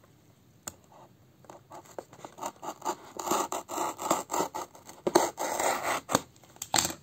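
A knife blade cutting through the sealed edge of a cardboard shipping box: rapid rasping, scraping strokes that begin about a second and a half in and grow louder and denser, with a couple of sharp clicks near the end.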